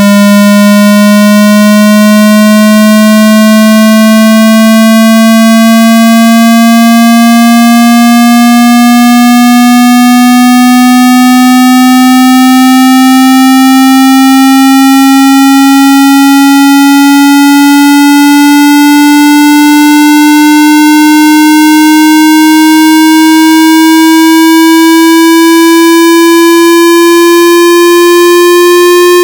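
Square-wave test tone of a hearing-test frequency sweep, one steady tone with many overtones rising slowly and smoothly in pitch. It is very loud.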